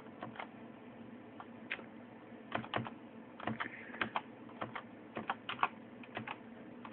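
Computer keyboard being typed on: irregular key clicks, a few at first, then quicker clusters as a code is keyed in letter by letter.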